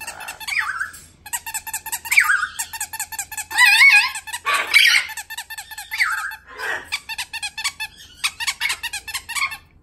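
Rubber squeaky toy squeezed over and over in quick runs of short squeaks, with a few longer wavering squeals in between.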